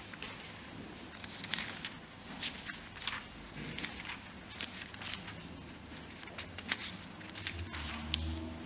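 Quiet, irregular rustles and clicks of something being handled, with a low hum swelling near the end.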